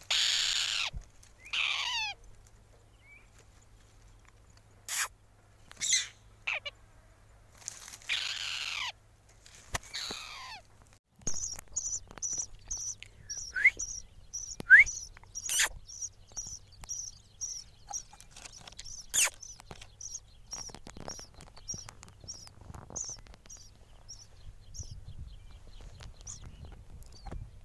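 Nestling birds calling: loud, harsh begging screeches with falling pitch from downy chicks in a tree nest near the start and again about eight to ten seconds in, then a long run of short, high cheeps repeating two or three times a second from small nestlings with yellow gapes, fading toward the end.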